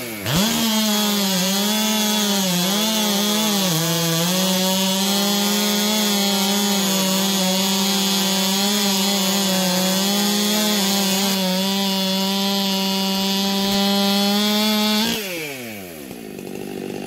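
Stihl MS500i fuel-injected two-stroke chainsaw at full throttle cutting through a hardwood log. The revs climb sharply at the start, hold high with small dips under load, then drop about fifteen seconds in as the throttle is let off.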